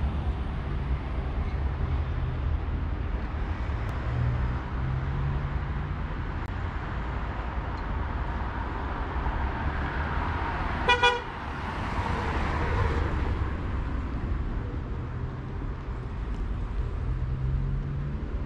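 Street ambience: a steady low rumble with a car passing around the middle, and a car horn giving two quick toots about eleven seconds in.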